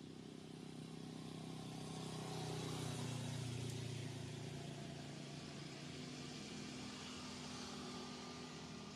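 An engine humming as it passes at some distance, growing louder over the first few seconds and then slowly fading.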